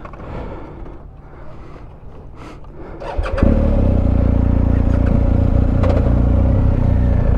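BMW R1250GS Rallye's boxer-twin engine started about three seconds in, catching at once and settling into a steady idle.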